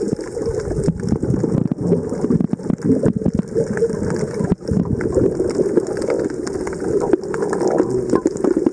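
Underwater noise picked up by a camera: a steady low rush of water with a dense, irregular crackle of sharp clicks.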